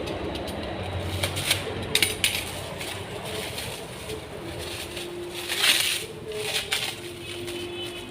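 Unboxing handling: scattered clicks, knocks and clinks as packaging and parts are moved, with a louder rustle about six seconds in.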